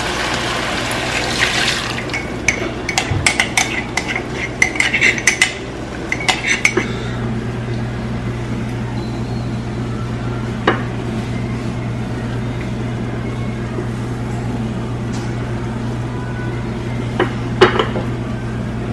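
Utensil clinking and scraping against a skillet in a quick run of taps for the first several seconds, then a steady low hum with a few single clinks, two of them close together near the end.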